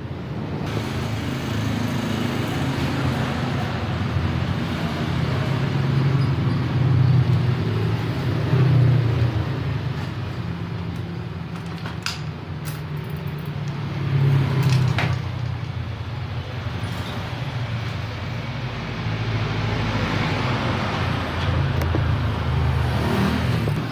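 Steady low engine rumble, like motor traffic going by, swelling and fading, with a few sharp clicks around halfway through.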